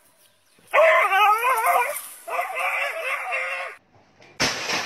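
A dog giving two long whining yelps with a wavering pitch. Near the end comes a sudden, loud, noisy burst that fades away.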